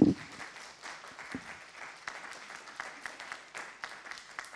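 Audience applauding, thinning a little toward the end.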